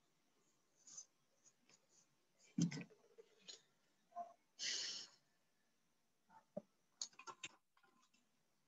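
Marker pen drawing lines on a whiteboard: faint short scratchy strokes, a dull knock about two and a half seconds in, a longer scrape a little after the middle, and a quick run of clicks near the end.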